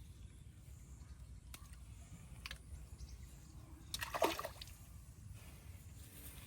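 Water splashing and sloshing briefly about four seconds in, with a few faint clicks before it, over a low steady rumble.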